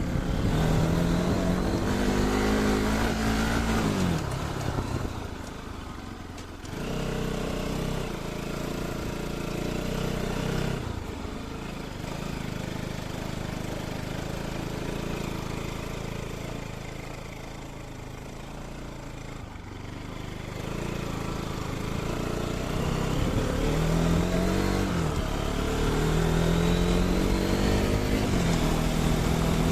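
Bajaj Pulsar RS 200 motorcycle's single-cylinder engine through its stock exhaust, accelerating and easing off so that its note rises and falls again and again. It is loudest near the start and near the end, and changes abruptly a few times.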